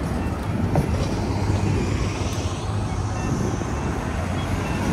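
City street traffic: a steady rumble of vehicle engines and tyres close by, with a low engine hum running under it.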